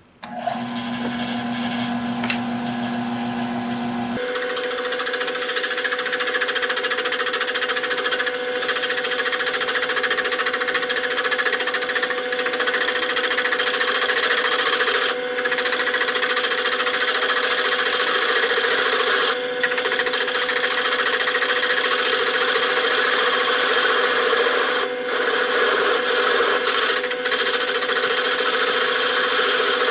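Wood lathe motor starting up and spinning the oak blank, then a turning gouge cutting into the wood about four seconds in, a steady rough hiss of shavings over the motor's hum, broken by a few brief lifts of the tool. The cuts are roughing out a tenon on the blank.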